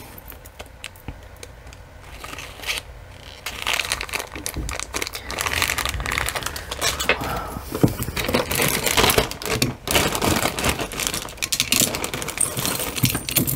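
Crinkling and rustling of plastic, with small clicks and clinks of metal jewelry being handled and set down; fairly quiet at first, then busier from about three and a half seconds in.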